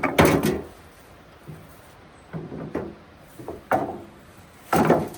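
Rough stones scraping and knocking against each other as they are shifted and set in a dry stone wall, in about four separate bursts.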